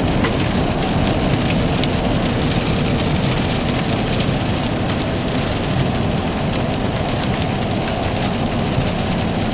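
Rain on the cab roof and windshield at a steady level, with the 5.7-litre V8 running underneath as a low rumble through the dual TRD cat-back exhaust, heard from inside the truck's cab.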